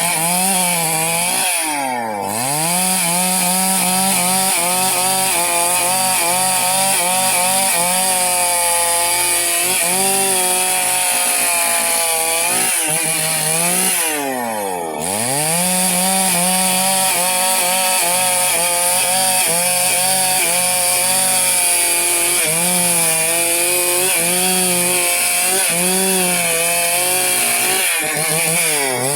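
Chainsaw engine running at high revs while cutting timber into rafters, its pitch wavering under the load of the cut. Three times, about two seconds in, midway and near the end, the engine drops sharply in pitch and revs straight back up.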